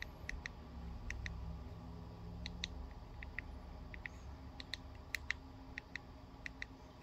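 Small plastic e-bike handlebar control buttons clicking, pressed again and again to step through the digits of the display's password. The clicks come mostly in quick pairs, about one pair a second, over a faint low hum.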